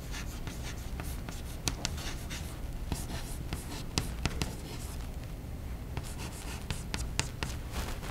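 Chalk writing on a blackboard: irregular scratchy strokes and sharp taps as letters are written, over a steady low hum.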